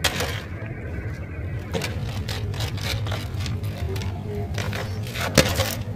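Plastic toy vehicles knocking and clicking as they are set down in a plastic basket, a few separate knocks with the loudest near the end, over a low steady hum.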